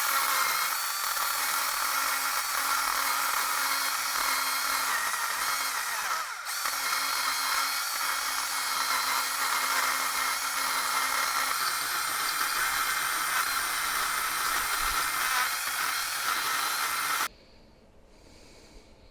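Handheld power tool running steadily as it grinds down the top edge of a concrete cylinder, levelling and chamfering it. The tool dips briefly about six seconds in and cuts off sharply near the end.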